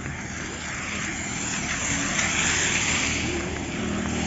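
A motor vehicle approaching, its engine hum and tyre hiss growing steadily louder.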